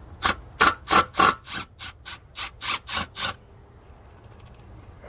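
Small Milwaukee Fuel cordless impact wrench run in about a dozen short trigger bursts, three or four a second, backing out a transmission range sensor bolt; the bursts stop a little past halfway.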